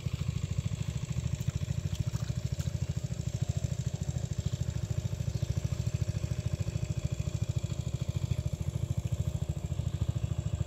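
A small engine running steadily, with a rapid, even low throb that does not change.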